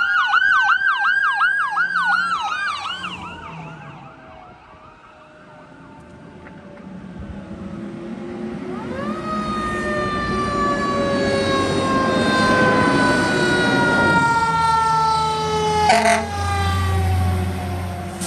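A Falck ambulance's siren yelps and wails in a fast up-and-down warble, fading away over the first four seconds. About nine seconds in, Los Angeles County Fire Engine 145's siren winds up and then falls slowly in pitch as the engine approaches. There is a short loud burst about sixteen seconds in, and the truck's engine is loudest near the end as it passes close.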